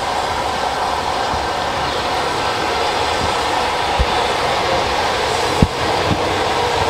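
Train running in, headed by a Southern Railway Battle of Britain class 4-6-2 Pacific steam locomotive: a steady running noise with no clear beat. A few short low thumps come in the second half, the sharpest about five and a half seconds in.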